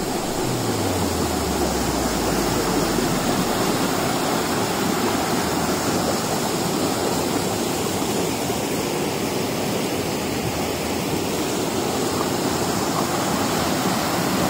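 River water rushing steadily over rocks in a small rapid.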